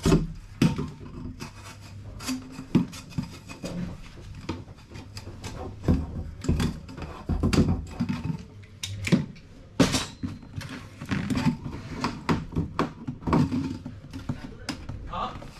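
Irregular knocks, clicks and scraping, typical of hands working with tools and fittings, over a faint steady low hum.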